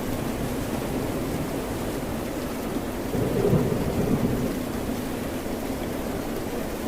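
Steady rain and ocean surf hiss, with a low rumble swelling up about three seconds in and fading over a second or so.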